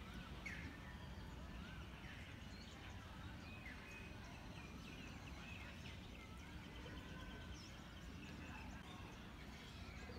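Birds chirping and calling, many short chirps and gliding notes with a quick trill in the middle, over a low steady rumble.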